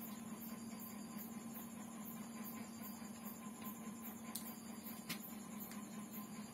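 Quiet eating by hand: a couple of sharp little clicks about four and five seconds in as fingers pick rice off the plate and the eater chews, over a steady low electrical hum and a faint high ticking about four times a second.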